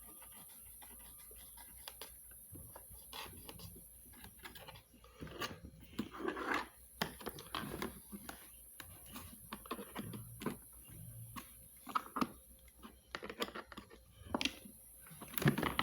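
Irregular clicks, taps and scrapes of hands working the plastic housing of a Miele vacuum cleaner while taking it apart.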